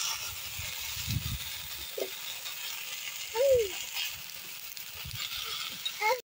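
Chopped bottle-gourd stems tipped into a karai of hot oil with frying potato and aubergine, with a dull thump about a second in as they land, over a steady sizzle. The sound cuts off suddenly near the end.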